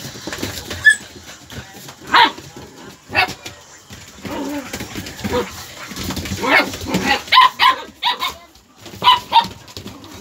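Several dogs play-fighting, giving short barks: a few single ones at first, then quick runs of them in the second half.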